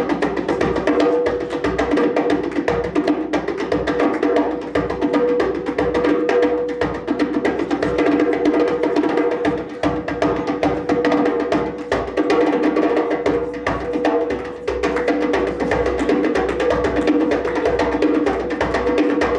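Djembe played with bare hands in a fast, unbroken run of strokes.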